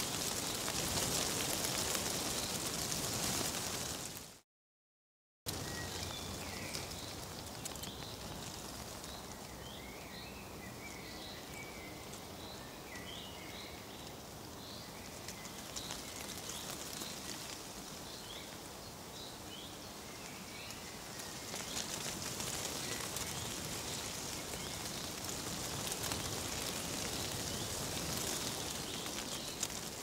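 Outdoor nature ambience: a steady rustling hiss of leaves that drops out to silence for about a second near the start, then returns with small birds chirping briefly and repeatedly through the middle, before the hiss grows louder again in the last third.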